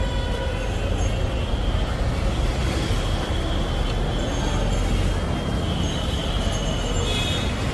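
Steady noise of a crowded market street, traffic and crowd together, with a heavy low rumble and thin high-pitched tones that come and go.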